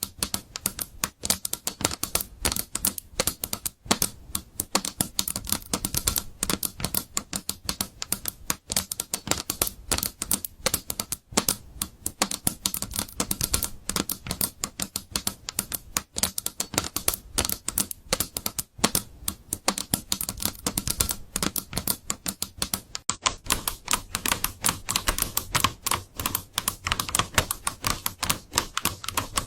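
Keyboard being typed on quickly and continuously, a dense run of key clicks. About 23 seconds in the keystrokes change to a brighter, thinner sound with less low end, as from a different keyboard.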